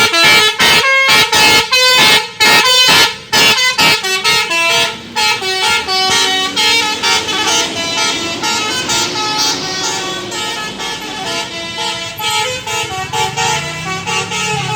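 Bus 'telolet' musical air horn with three trumpets, sounded loudly. For the first four seconds it plays quick short toots, about three a second; after that it holds longer, overlapping notes of changing pitch.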